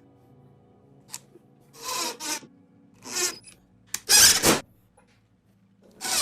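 A few short rubbing, scraping strokes from parts being handled and worked on, the loudest about four seconds in.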